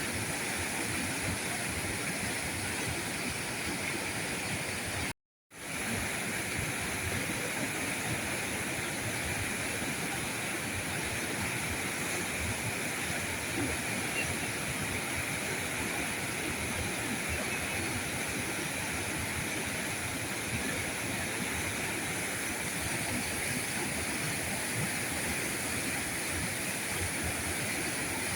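River current flowing steadily, an even continuous wash of rushing water. It cuts out to silence for a split second about five seconds in, then comes straight back.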